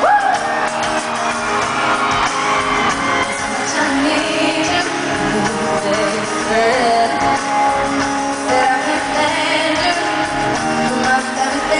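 Live pop concert music heard from the audience: a woman singing into a microphone over guitar accompaniment, with crowd voices mixed in.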